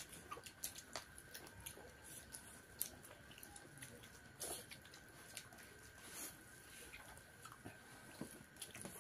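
Faint chewing and mouth sounds of people eating rice with their hands, with small scattered clicks from fingers and food on the plates. A faint steady high-pitched hum runs underneath.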